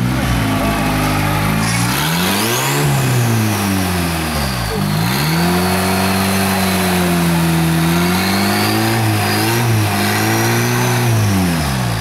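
Turbocharged Toyota engine of a rock-crawling buggy revving up and down in long swells under load as it climbs over boulders, held high for a couple of seconds in the middle. A high turbo whistle rises and falls along with the revs.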